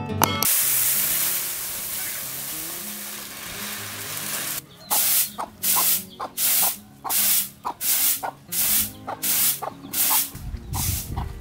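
Uncooked rice grains hissing as they swirl in a large round woven winnowing tray, then a run of rhythmic swishes, about two a second, as the rice is tossed in the tray. Near the end there is a heavier rush as the grains pour off the tray.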